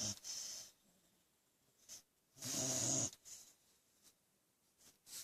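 A pet dog snoring in her sleep: two snores about two and a half seconds apart, each a low buzzing rattle with breathy hiss lasting under a second.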